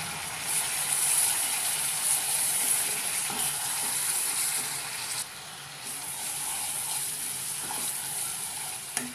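Masala paste of tomato, onion, ginger and garlic sizzling in oil in a nonstick karahi while being stirred with a wooden spatula, ground spices just mixed in. The steady sizzle dips briefly about five seconds in, and a sharp click comes near the end.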